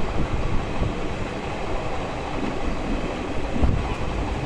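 Express train running at speed, heard from on board by the window: a steady rumble of wheels on rails.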